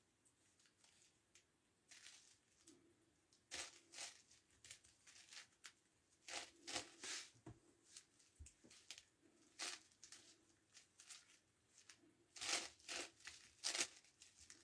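Plastic clicks and clacks of a 9x9x9 Rubik's Cube's layers being turned by hand, in short flurries with pauses between them.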